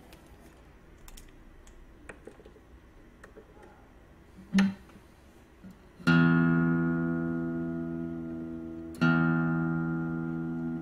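Acoustic guitar: a few faint clicks and one short plucked note, then two strummed chords about three seconds apart, each left to ring out and fade.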